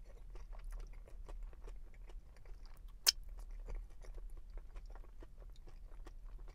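A person chewing a mouthful of burger: soft, irregular crunching from the crisp hickory sticks (thin potato sticks) in it. One sharper click about three seconds in.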